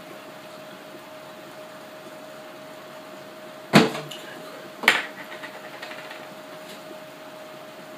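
Two sharp knocks on a wooden table about a second apart, the first as a plastic gallon milk jug is set down, over a steady faint hum.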